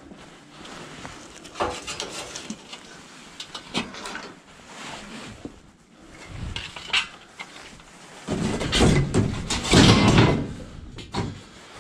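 Scrap metal being handled and loaded into a van: scattered metallic knocks and clanks, then a louder stretch of clatter about eight seconds in as a length of slotted steel shelving is pushed in over the van floor.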